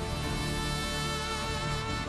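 Instrumental worship music with sustained, held chords.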